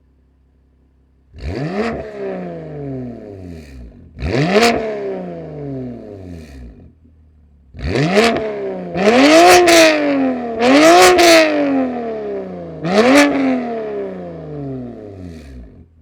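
BMW M2 Competition's S55 twin-turbo straight-six idling, then blipped through six quick revs, the last four in close succession, out of a Milltek cat-back exhaust with an Active Autowerke equal-length mid pipe. Sharp cracks sound at the top of several revs.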